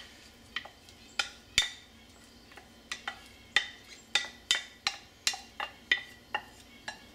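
Metal utensil scraping and knocking against a ceramic casserole dish and a stainless saucepan as chopped vegetables and chicken are tipped in: a run of irregular sharp clinks and taps, several a second through most of the stretch.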